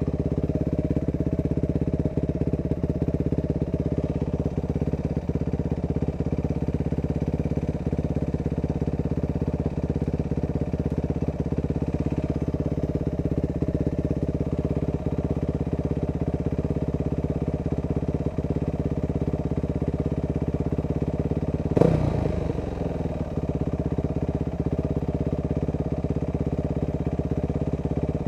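Dirt bike engine running at a steady pace, heard from the rider's onboard camera. About three-quarters of the way through there is a sudden loud knock, after which the engine note drops.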